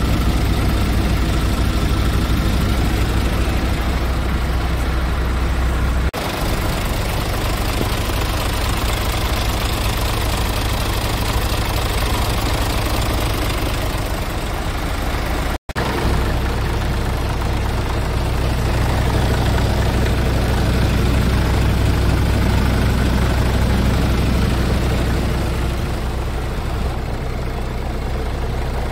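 Scania R Euro 6 tractor unit's diesel engine idling steadily, with a brief cut-out about halfway through.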